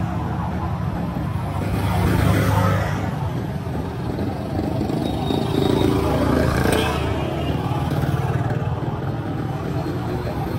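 Street traffic: motor vehicle engines running close by in a steady rumble, swelling as vehicles pass about two seconds in and again around six to seven seconds.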